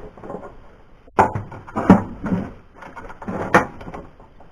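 Hand tools clinking and knocking on metal, several separate sharp knocks, while header bolts are being fitted on a big-block engine.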